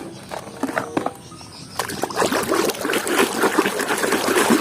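Water running and splashing over a toy vehicle being washed, starting about two seconds in, after a few light knocks.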